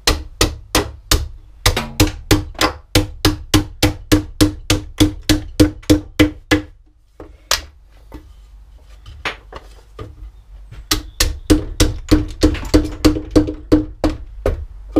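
Hammer knocking out the waste between saw cuts along the edge of a wooden board. It goes in quick, steady blows, about three a second, each a sharp knock with a short ring from the board. Around the middle there is a pause of a few seconds with only a few lighter taps, then another fast run of blows.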